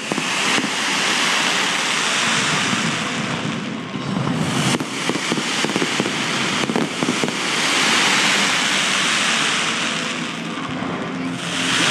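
Fireworks going off: a continuous hissing rush of spark fountains, scattered with many sharp crackles and pops. The rush swells loudest about two-thirds of the way through.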